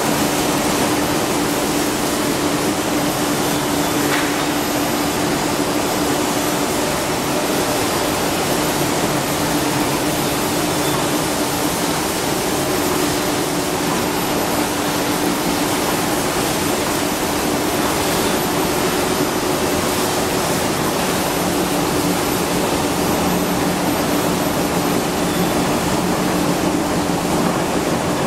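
A 1250 double twist stranding machine (buncher) and its wire pay-off reels running at speed: a steady, even machine noise with a low hum underneath.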